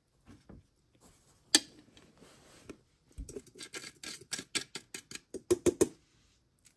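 A series of sharp clicks and knocks: one loud click about a second and a half in, then a quick, irregular run of about fifteen from about three seconds to six.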